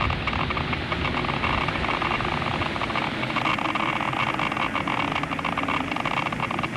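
Steady crackling static noise, a dense hiss shot through with rapid crackles.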